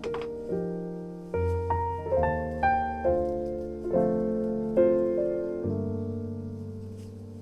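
Background music: a gentle solo piano melody, single notes struck and left to fade, over low bass notes.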